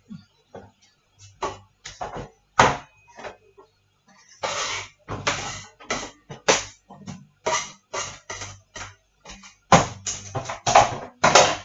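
Fish being washed by hand in a bowl of water at a kitchen sink: irregular splashes and knocks, with longer runs of splashing about halfway through and a dense cluster near the end.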